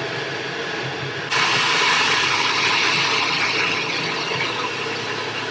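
Hair dryer blowing steadily over a low motor hum. About a second in it suddenly turns louder and hissier, then stays strong.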